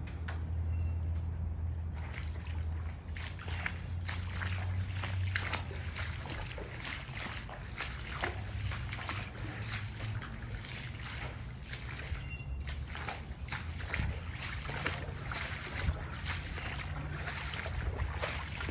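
Shallow floodwater and mud sloshing and splashing, with irregular crackling splashes through most of it and a low steady rumble of wind on the microphone.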